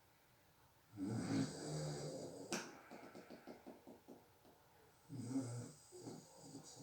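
A sleeping person snoring, two snores in all. The first comes about a second in and ends in a sharp click and a trailing rattling flutter. The second comes about five seconds in.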